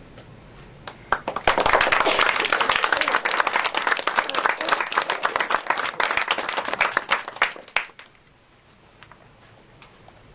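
Audience applauding, starting about a second in and breaking off suddenly near eight seconds. Just before, the last chord of an electric keyboard fades out.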